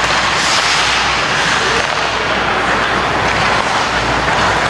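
Ice rink game ambience: a loud, steady rushing noise with no distinct hits or voices standing out.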